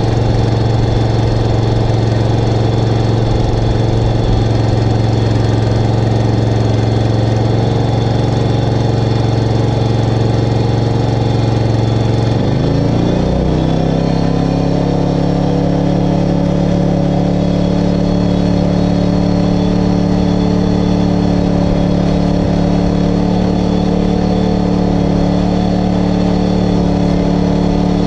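John Deere walk-behind lawn mower's small engine running steadily; about halfway through it speeds up over a second or so and then holds at the higher speed.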